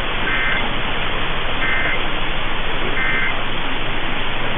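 Emergency Alert System end-of-message data tones: three short two-tone warbling bursts about 1.3 seconds apart, signalling the end of the alert. Under them runs a steady hiss of noisy radio reception.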